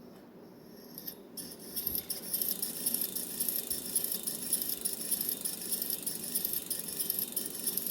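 Bicycle wheel spun by hand, with a fast, even metallic ticking rattle that starts about a second and a half in and keeps going.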